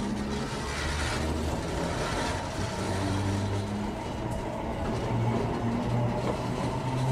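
Ueda Kotsu Moha 5253 'Marumado' electric railcar pulling away from a station, heard from inside the car. A low motor and gear hum steps up in pitch as it gathers speed, over steady running noise.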